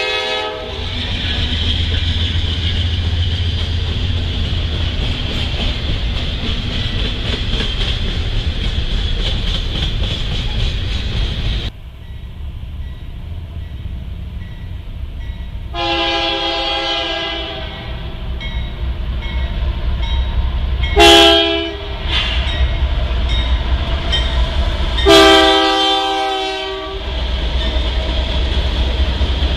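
Norfolk Southern diesel freight locomotives rumbling steadily past. The sound cuts off suddenly to a Canadian Pacific locomotive approaching, whose chime air horn sounds a long blast, a short loud one and another long one for the grade crossing. The rumble of the passing locomotives follows near the end.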